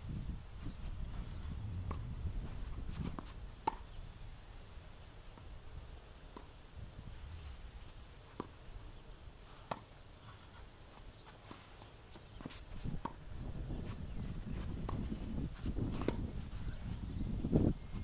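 Tennis ball struck by rackets and bouncing on an artificial-grass court during a rally and serve: scattered sharp pops a second to several seconds apart, the loudest near the end, over a low steady rumble.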